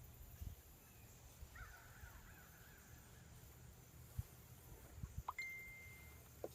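Near silence with a faint, distant crow cawing, a few soft low bumps, and a short thin high tone near the end.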